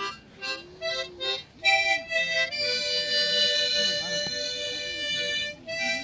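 A harmonica playing a slow melody: a few short notes, then a long held chord for about three seconds, then new notes near the end.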